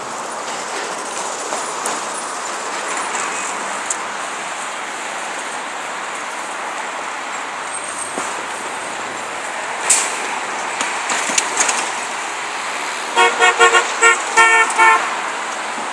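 Steady noise of traffic passing on a multi-lane road, with a few sharp clicks about ten seconds in. Near the end a car horn gives a rapid run of short toots in two quick groups.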